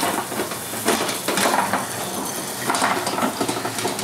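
Metal lawn mower deck and wheels rattling and clattering as the remote-controlled mower, its engine off, is driven across a concrete path and onto grass. The clatter comes in uneven clusters, heaviest about a second in and again near the three-second mark.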